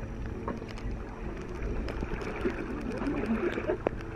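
Water of a shallow irrigation ditch flowing and lapping around inner tubes, a steady rushing haze with a low rumble. Faint voices talk in the background about halfway through, and a single sharp click sounds near the end.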